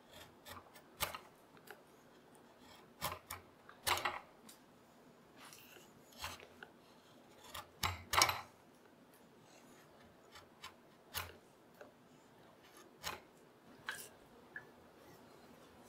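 Curved carving gouge pushed by hand through beech, each stroke a short scraping slice as a curled shaving lifts off. About a dozen irregular cuts, the loudest around four and eight seconds in.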